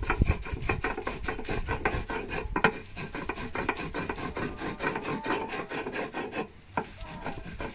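Chile being ground on a stone metate: the hand stone rasps and rubs over the grinding stone in quick, repeated strokes, with a short lull about six and a half seconds in.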